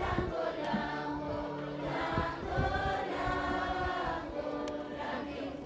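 A group of voices singing together like a choir, in long held notes that rise and fall.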